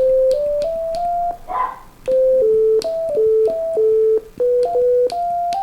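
Arduino synthesizer running the Mozzi sound library, playing a quick run of single notes. The plain sine-like tones step up and down between mid pitches, and many notes start with a click.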